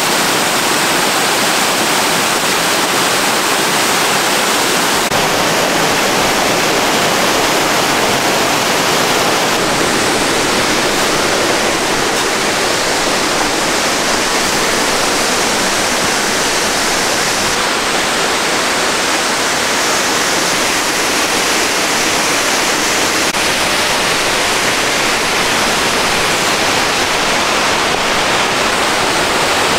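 Mountain stream cascading over boulders: a loud, steady rush of falling water, its tone shifting slightly a few times.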